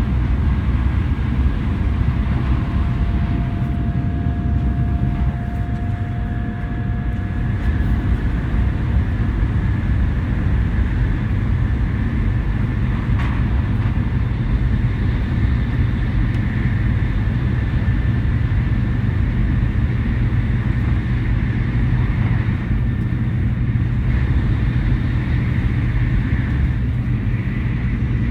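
Shinkansen bullet train in motion: a steady low rumble with a faint whine that rises slightly in pitch.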